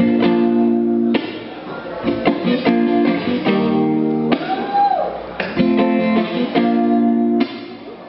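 Acoustic guitar strumming chords, with a new chord about every second, and a short rising-then-falling tone about halfway through.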